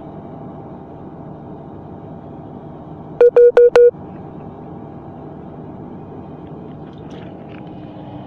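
Four quick electronic beeps, one steady pitch each, about three seconds in, over a steady low mechanical hum.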